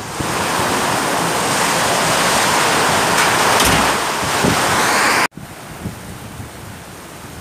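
Heavy rainstorm with strong wind, a loud steady rush. About five seconds in it cuts off abruptly to quieter rain with scattered drips.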